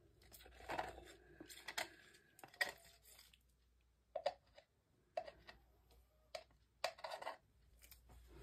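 A series of short, faint scrapes and crinkles: a thin stick scraping poured paint off the rim of a flexible plastic measuring cup held in a gloved hand.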